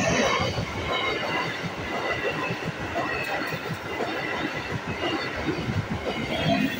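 MEMU express train's coaches passing at speed close by, with a loud, steady rush and the wheels clattering rapidly on the rails.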